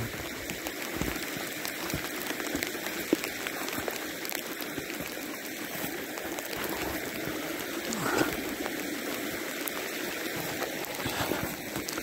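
Steady wash of a brook running over rocks through channels in its ice cover, with sleet falling. One sharp tick about three seconds in.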